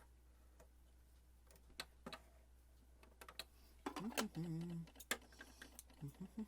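Scattered light clicks and taps from hands working on a Janome 525S sewing machine, clearing thread jammed in the mechanism. About four seconds in, the clicks come thicker along with a man's low wordless mumbling.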